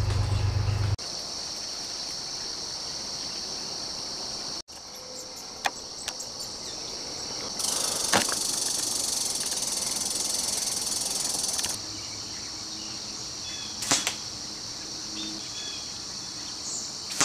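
Steady, shrill chorus of summer insects, cut off and resumed at several edits. A low rumble fills the first second, and a few short sharp clicks come through at intervals.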